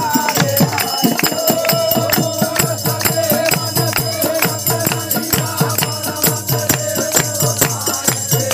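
Devotional folk music: dholak and hand drums played in a fast, steady beat with jingling percussion, while a group of men sing a long, held, wavering line.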